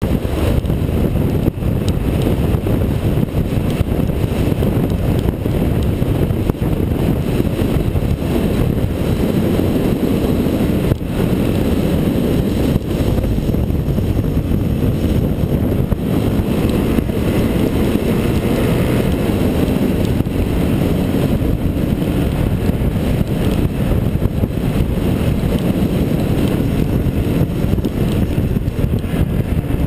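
Off-road motorcycle engine running steadily at speed on a dirt track, heavily mixed with wind buffeting on the bike-mounted camera's microphone.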